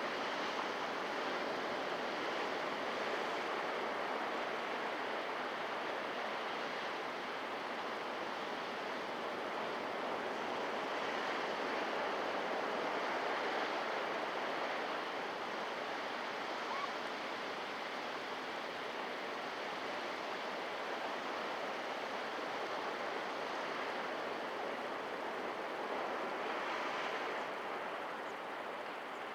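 Ocean surf washing in continuously: a steady rush of breaking waves that slowly swells and eases.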